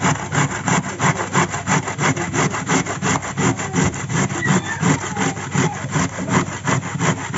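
Carrot being grated on a stainless-steel box grater: quick, even rasping strokes, about five a second.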